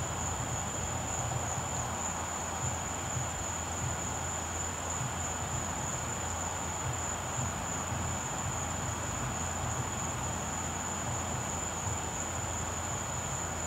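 Steady hum and rush of air from an inflatable pumpkin's blower fan, with a constant high-pitched whine above it.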